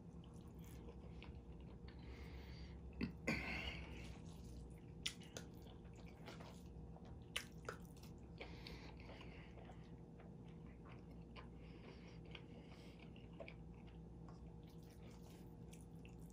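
A man chewing mouthfuls of orange chicken and rice, with a few sharp clicks of a metal spoon against a stainless steel bowl in the first half. A faint steady hum runs underneath.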